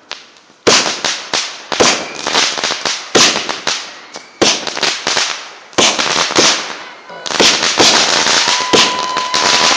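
A consumer fireworks cake firing shot after shot, roughly one every second or so, each a sharp bang followed by crackling. A steady whistling tone comes in near the end.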